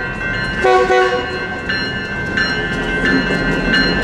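Railroad crossing bells ringing steadily, struck about every three quarters of a second. An approaching EMD GP38-2 freight locomotive gives a short horn blast about a second in.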